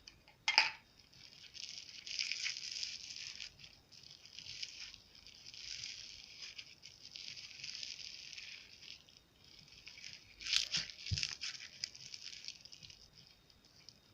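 Slime being kneaded and stretched by hand, a sticky crackling and popping in uneven swells, with a few sharper snaps about half a second in and again around ten to eleven seconds.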